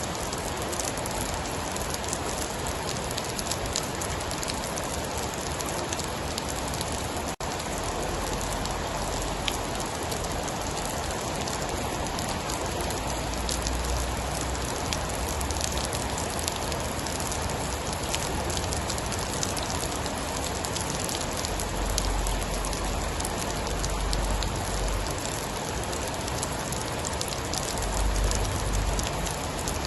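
Steady heavy rain falling on a surface, with many small sharp ticks of individual drops. Low rumbles swell and fade several times in the second half.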